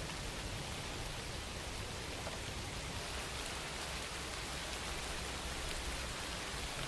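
Steady rain falling, a constant even hiss with faint patter of drops.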